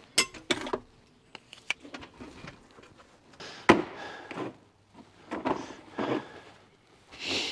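Hand tools being put away: scattered clicks, knocks and short scrapes, with one sharp knock about halfway through.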